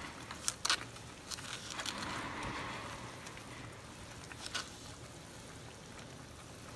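Thick tomato-cashew gravy simmering and bubbling in a pan, stirred with a wooden spoon, with a few sharp taps of the spoon against the pan.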